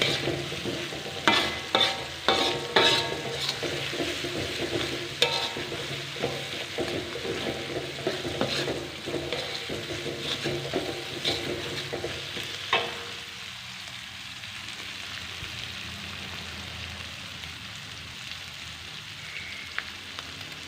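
Food frying in a pan while a spatula stirs it, with repeated scrapes and knocks of the spatula against the pan over a steady sizzle. The stirring stops about two-thirds of the way through, leaving only the sizzle.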